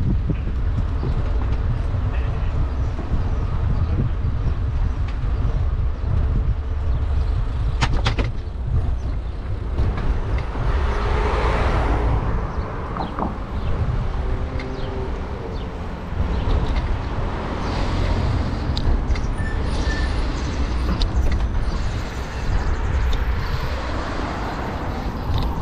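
Wind buffeting the microphone of a camera riding on a moving bicycle, a heavy, gusty rumble, mixed with tyre and road noise that swells a few times.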